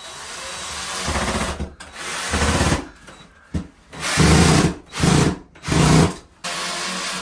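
Power drill driving screws into a wall in short bursts: a longer run that builds up over the first couple of seconds, then about five quick pulses of the trigger.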